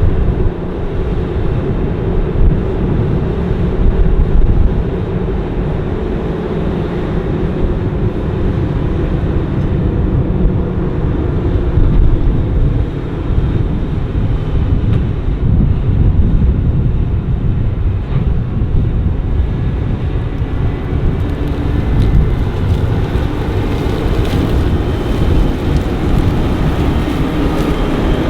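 New Holland CR 9.90 combine running steadily while harvesting corn: a continuous low rumble of engine and threshing machinery.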